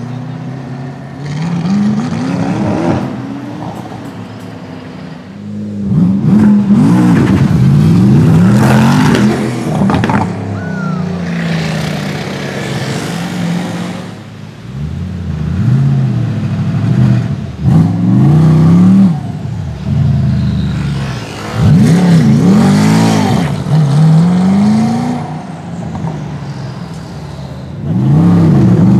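Gumpert Apollo S's 4.2-litre twin-turbo V8 accelerating hard several times, loud, its pitch climbing and dropping back again and again as it shifts up through the gears.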